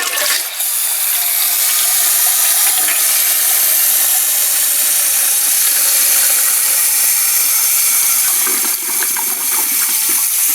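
Loud, steady hiss of water rushing through a new Fluidmaster 400A fill valve as it refills a just-flushed toilet tank.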